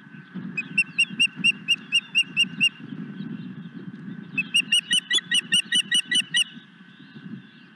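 Osprey calling: a run of about nine sharp, evenly spaced whistled chirps, then after a short pause a second, faster and denser run of chirps.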